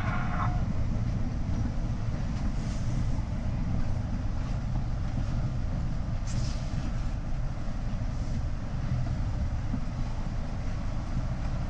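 Steady low rumble of an R62A subway train on the 7 line, heard from inside the car at its front window, with a brief faint hiss about six seconds in.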